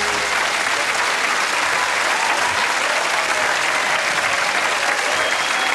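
Studio audience applauding steadily, a dense even clapping with no music over it.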